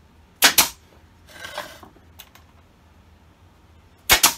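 Two sharp knocks about half a second in, a short scrape about a second later, and two more sharp knocks near the end: wooden hive frame parts and tools being knocked and handled on a workbench.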